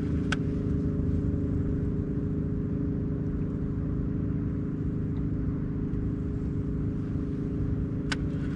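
Mercury outboard motor running at a steady low speed. Two sharp clicks sound over it, about a third of a second in and again near the end.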